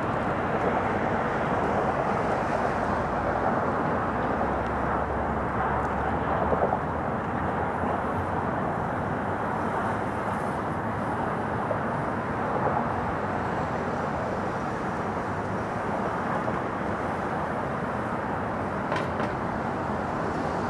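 Steady distant outdoor rumble of traffic and aircraft engines, an even rushing noise with no distinct events.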